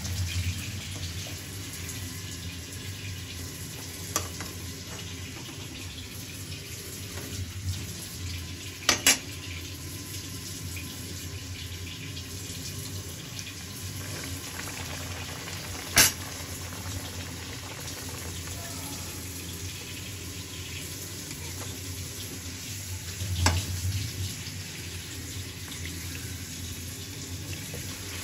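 Hot oil sizzling steadily as puris deep-fry in a kadhai. A few sharp clicks stand out, two close together about a third of the way in, the loudest just past halfway and one more later.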